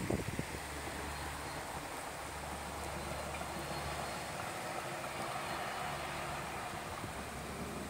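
A few dull knocks in the first half second, then the steady low running hum of a two-car diesel railcar train passing, under an even hiss of outdoor noise.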